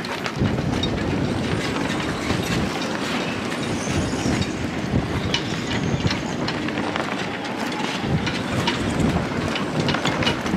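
Wind buffeting the microphone on a moored sailboat's deck: a steady rumbling rush with scattered small clicks.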